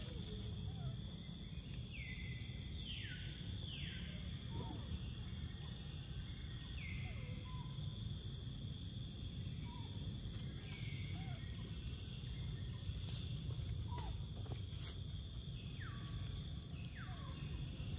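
Forest insects droning in a steady high hum, with short falling calls repeating every second or few seconds over it.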